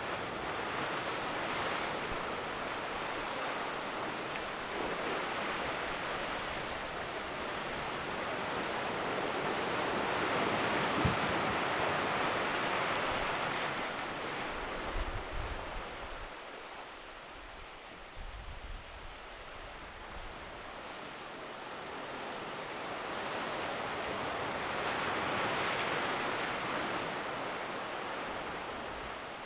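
Ocean surf washing and churning against the shore, swelling up and easing back twice in slow surges. Wind buffets the microphone with low rumbles partway through.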